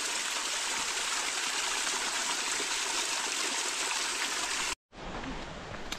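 Spring water running down a small rocky cascade: a steady rush of falling water that cuts off abruptly about five seconds in.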